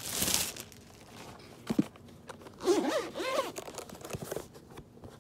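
Clear plastic packaging bag crinkling as a headphone cover is pulled out of it, followed by quieter rustling and handling clicks. A short hummed vocal sound comes about three seconds in.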